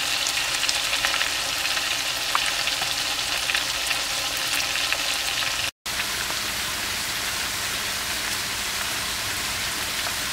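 Flour-coated round steak pieces shallow-frying in hot peanut oil, a steady sizzle with many small crackles. About six seconds in it cuts out for an instant, then chopped onions and mushrooms sautéing in butter sizzle on with fewer crackles.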